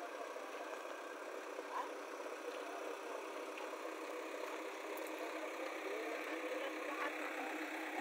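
JCB 3DX backhoe loader's diesel engine running steadily as the backhoe arm digs soil.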